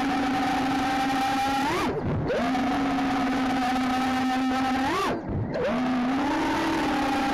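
A 5-inch FPV quadcopter's brushless motors whining steadily, heard from the onboard camera. Twice, about two seconds in and again about five seconds in, the pitch rises sharply and then drops away briefly as the throttle is punched and cut.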